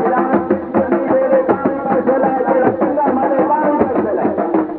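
Music with fast, even drum strokes under a wavering melody line.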